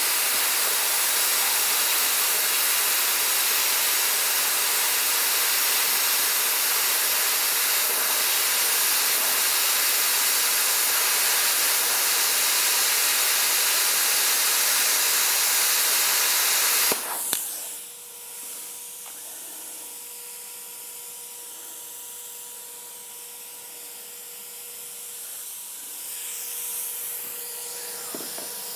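Plasma cutter at 40 amps hissing steadily as its arc cuts through three stacked 1/8-inch steel plates at once. The hiss cuts off abruptly about 17 seconds in, when the cut is stopped, leaving a much quieter steady hum with a faint tone.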